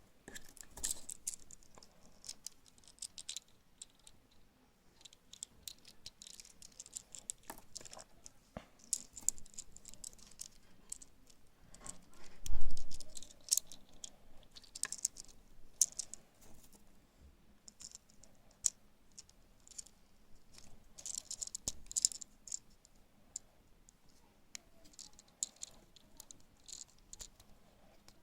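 Hands unwrapping and opening Kinder Surprise eggs: bursts of crinkly foil-and-plastic rustling with sharp plastic clicks, and one heavier dull thump about twelve seconds in.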